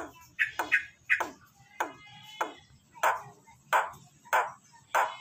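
Jalak Nias starling calling: a repeated series of about ten short, sharp notes, each falling steeply in pitch, coming at a regular pace of roughly one and a half per second.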